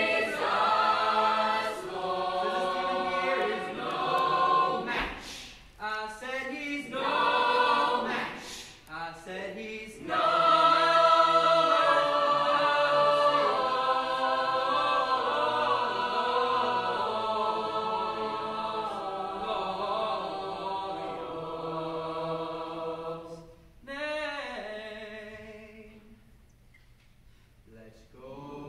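Mixed high-school choir singing a cappella: short, clipped phrases broken by brief gaps, then one long held chord, a short sung accent, and a quiet pause near the end.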